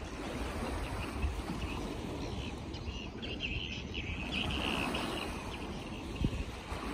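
Outdoor ambience: a steady low rumble of wind and water noise, with high bird chirps for about two seconds in the middle and a short thump near the end.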